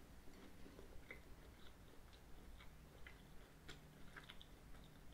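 Very faint chewing of a crumbly pastry and chocolate tart: scattered soft, crisp clicks at an irregular pace over near silence.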